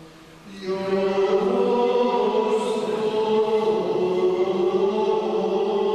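A choir of men's voices chanting slow, long-held notes in plainchant style, starting about half a second in.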